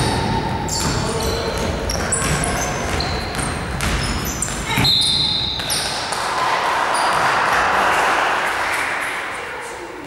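Basketball game in an echoing sports hall: a ball bouncing, sneakers squeaking on the wooden floor, and players and spectators calling out. A broader swell of voices comes about six seconds in and dies away near the end.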